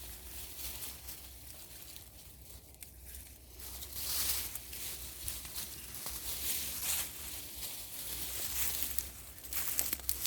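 Rustling and scraping of hands digging through wood-chip mulch around sweet potato vines, coming in several short scratchy bursts.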